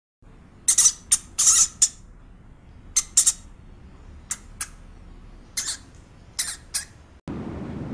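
Pet rat, about a dozen short, sharp high-pitched sounds in small irregular clusters over a faint steady hiss. A steady low rushing noise cuts in near the end.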